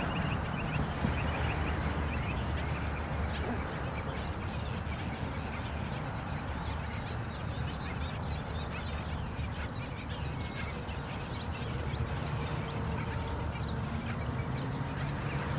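Black skimmer colony calling: many short, overlapping calls throughout, over a steady low rumble.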